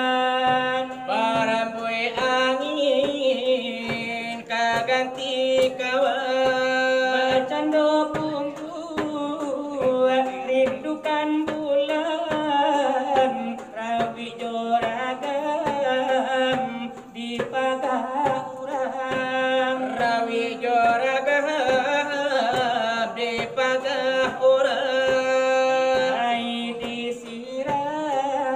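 Salawat dulang: male voices singing a Minangkabau devotional melody while beating a steady rhythm with their hands on large brass trays (dulang).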